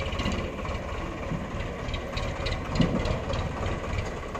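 Heavy diesel engine running under load, with short metallic clanks and rattles and a thud about three seconds in.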